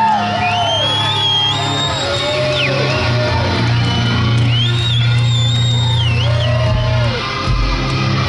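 Live hard rock band playing, with a steady bass underneath and pitched lines sliding up and down, while the crowd whoops and shouts.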